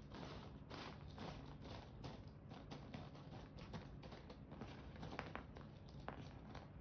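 Loose cardboard jigsaw puzzle pieces being handled and sifted, making faint, irregular small clicks and rustles.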